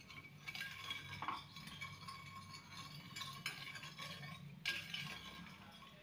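A spoon stirring sugar and water in a pan while the sugar dissolves, with a few light clinks against the pan over a faint low hum.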